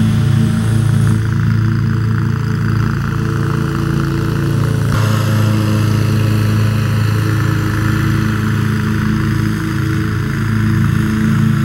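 Commercial lawn mower engine running steadily at working speed, a constant drone, with an abrupt shift in the sound about five seconds in.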